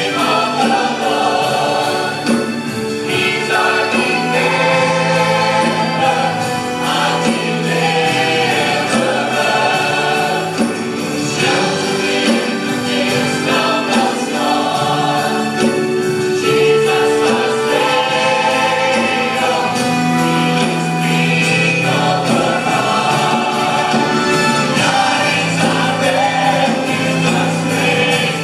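Church choir singing a gospel song, many voices in sustained chords.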